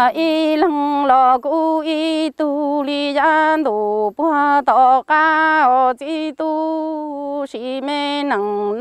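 A solo voice singing Hmong kwv txhiaj, the chanted sung poetry. It holds long, steady notes with ornamental bends, and short breaths break the lines into phrases.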